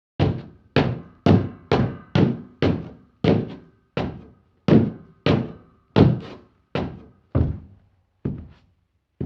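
Boots walking at a steady pace, about two heavy steps a second, each a hollow thud with a short ringing tail. The steps thin out and grow quieter near the end.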